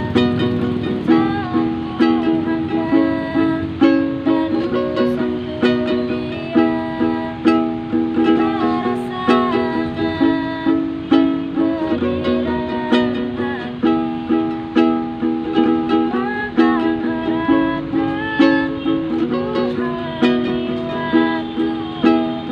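A live solo singing voice performing a slow pop ballad to a steadily strummed ukulele.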